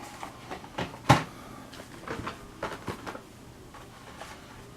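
Carded diecast model cars being handled: cardboard and plastic blister packs knocking, tapping and rustling, with one sharp knock about a second in.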